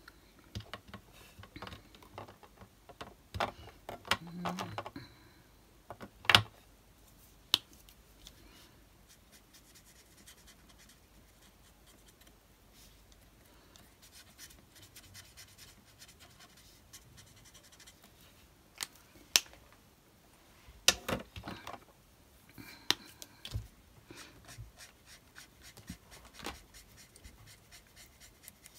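Marker nib scratching lightly over small pieces of card stock as they are coloured, broken by several sharp clicks and taps as pens and paper pieces are handled on the desk.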